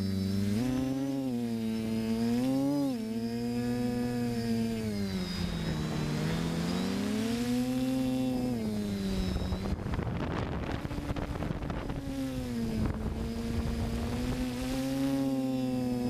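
FPV multirotor drone's electric motors and propellers whining, the pitch swooping up and down as the throttle changes. About ten seconds in, a rushing noise briefly covers the whine.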